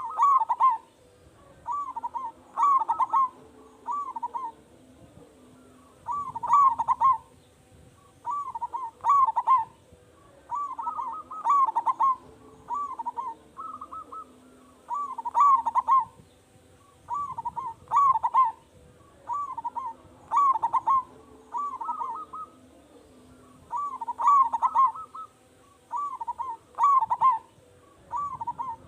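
Local zebra dove (perkutut) cooing over and over, each phrase a short run of rolling notes, repeated every two to three seconds; a loud, frequent-singing (gacor) bird of the kind used as a lure call to set other doves singing.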